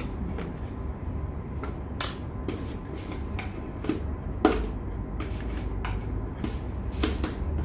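Scattered knocks and clicks of containers being handled and set down while alcohol and aloe vera gel are mixed into hand sanitizer, the loudest knock about four and a half seconds in, over a steady low hum.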